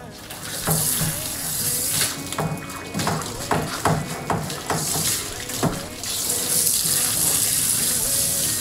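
Water running and splashing in a dog's bath: a run of splashes through the middle, then a steadier flow of water over the last few seconds.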